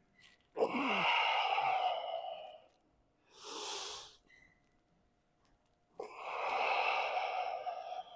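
A man breathing hard from weightlifting exertion: two long, loud exhalations of about two seconds each, about five seconds apart, with a quick breath in between.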